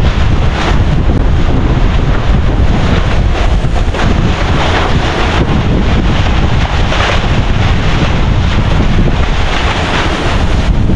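Strong gusting wind buffeting the microphone, a loud continuous rumble.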